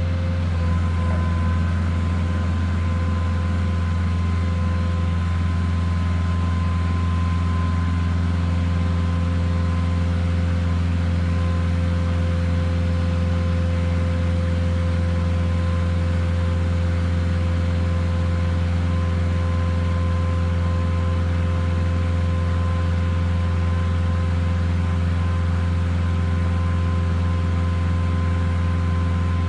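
Megalift side-loading trailer's hydraulic power unit running steadily as its crane arms lift a container: a constant low hum with a thin steady whine above it.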